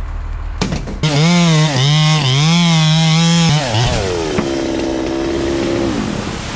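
Chainsaw engine revving hard, its pitch rising and falling several times, then running at a lower steady pitch and winding down near the end.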